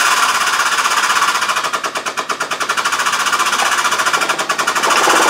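Hydraulic shop press pump running with a rapid rhythmic chatter as it presses a bearing onto a Land Rover LT77 gearbox mainshaft. A steadier hum joins the chatter near the end.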